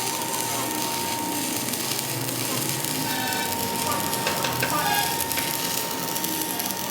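Workshop metalworking noise: a steady crackling hiss with a thin, steady high-pitched tone running underneath.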